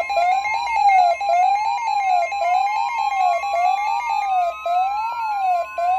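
Electronic emergency-alert alarm tones: a tone sweeping evenly up and down about once a second over a steady tone near 1 kHz, and from about two seconds in a further tone that slowly climbs in pitch.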